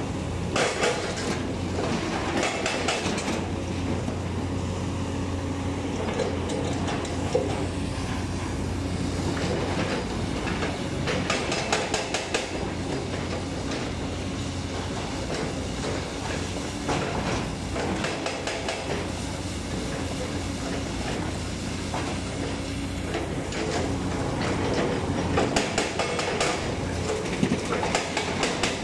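JCB 220LC tracked excavator running steadily and travelling on its steel crawler tracks, with rattling clanks from the track links coming in several bursts.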